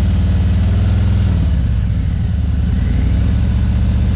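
Motorcycle engine running at low speed with a steady, low, even pulse as the bike pulls away during slow take-off practice.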